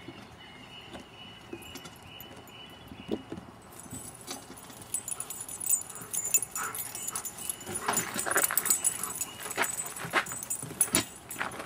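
Two dogs playing rough: a faint thin whine in the first few seconds, then scuffling and rustling of running paws on dry leaves and pine straw that grows louder toward the end.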